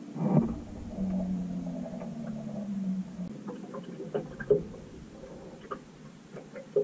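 Boat motor humming steadily with a knock just after the start; the hum ends about three seconds in, leaving scattered light clicks and knocks.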